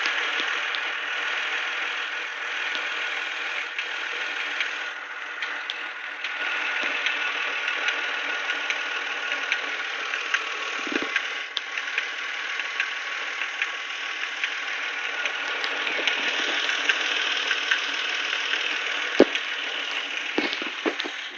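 Nissan VQ25DE 2.5-litre V6 idling with a ticking sound over it, which the owner suspects comes from the idle air control valve. A few louder single clicks stand out over the steady running.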